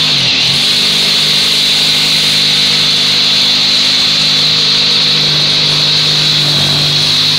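Power tool cutting wood, its motor running steadily. The motor pitch dips briefly just after the start and again near the end as the cut loads it.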